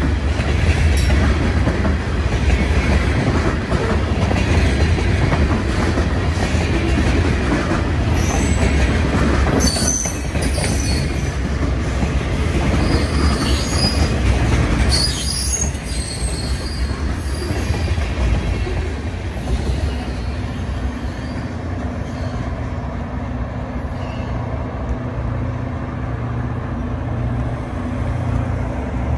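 Freight cars rolling past at close range: a steady heavy rumble of steel wheels on rail, with high-pitched wheel squeals coming and going around the middle. After about fifteen seconds the noise drops to a quieter steady low hum.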